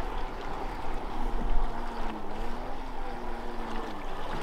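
Small radio-controlled speedboat's electric motor running at a distance, a faint hum whose pitch wavers slowly, with wind rumbling on the microphone.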